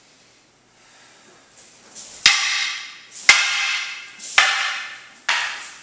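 Wooden practice swords (bokken) striking each other in a paired sword exercise: four sharp wooden clacks about a second apart, starting about two seconds in, each ringing briefly.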